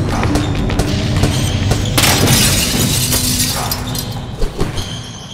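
Logo-reveal sting: sound-design music over a low rumble, with a loud shattering crash about two seconds in and two sharp hits before it fades out.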